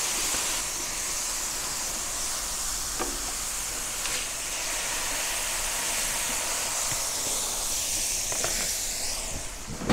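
Smashed burger patties sizzling steadily on a hot gas griddle, with a few light taps of a silicone spatula on the patties.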